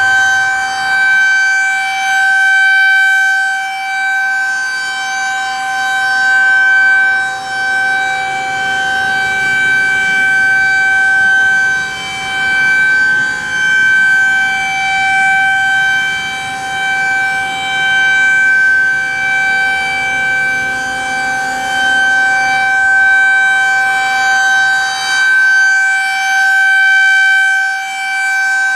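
Federal Signal 2001-SRN electromechanical outdoor warning siren sounding a steady tone, not a rising and falling wail. It swells and fades in loudness every few seconds as the rotating siren sweeps around.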